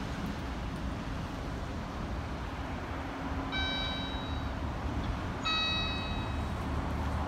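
Steady street traffic noise with an engine's low hum. Two high ringing tones sound about two seconds apart, the second lower in pitch.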